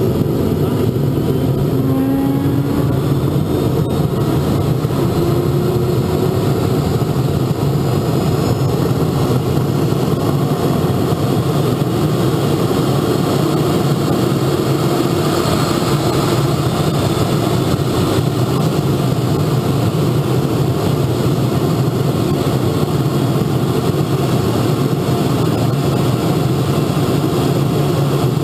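Model jet turbine engine running steadily, heard up close from beneath the airframe.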